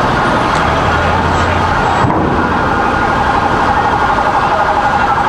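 Emergency vehicle sirens sounding over loud, steady noise. The siren turns to a fast warble about three seconds in.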